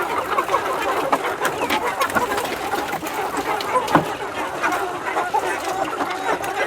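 A flock of chickens clucking and calling all at once in a dense, continuous chatter. A sharp tap stands out about four seconds in.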